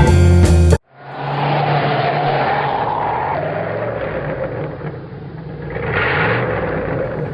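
Music cuts off sharply under a second in. Then a motorized toy train runs along its track: a whirring motor whose whine rises and falls in pitch, over a steady rattling rumble.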